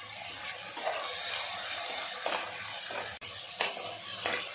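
Onions and tomatoes sizzling in hot oil in an aluminium pressure cooker, with a steel spatula scraping the pan in a few short strokes as the mixture is stirred.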